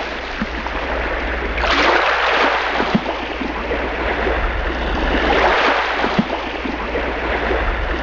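Sea waves washing in, a rushing noise that swells and eases in slow surges.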